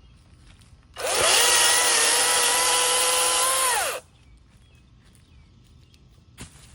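EGO 16-inch battery-powered electric chainsaw running at full speed for about three seconds. Its motor and chain whine up quickly about a second in, hold a steady pitch, then stop abruptly.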